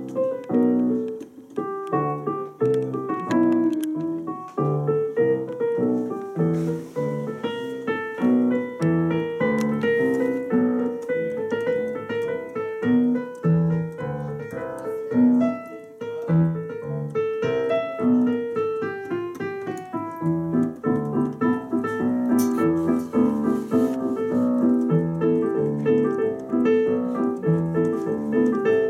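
Digital piano played continuously: a steady pulse of bass notes under chords and a melody.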